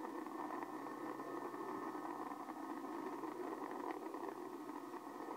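Steady, even rumbling noise from the launch broadcast played through a television speaker, thin in the bass, with no voices.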